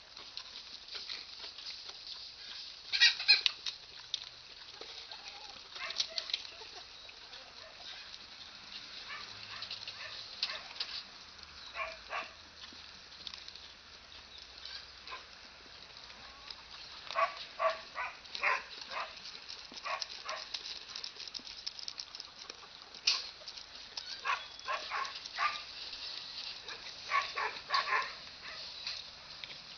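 Farm animals calling at feeding time in short, scattered calls, loudest about three seconds in and coming in quick clusters of several calls later on, over a steady faint high hiss.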